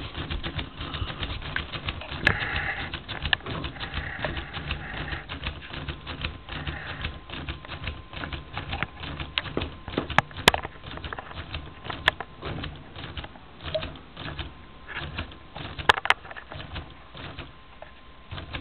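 LEGO pneumatic three-cylinder inline scotch yoke engine running on compressed air: a rapid clicking clatter of its plastic parts that grows sparser toward the end as the engine slows. It is running down because the tank pressure has fallen to just over 10 psi.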